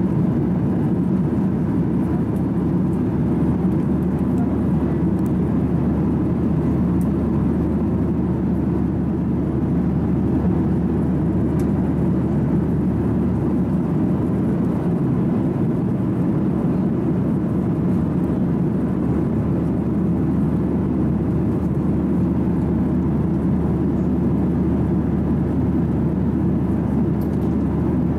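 Steady cabin drone of a Boeing 737-900ER airliner in flight, the airflow and engine noise heard from an economy seat, with a low, even hum underneath.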